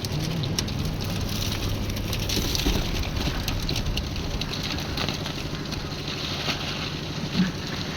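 Concrete mixer machine running: a steady engine hum with constant clattering and scraping on top.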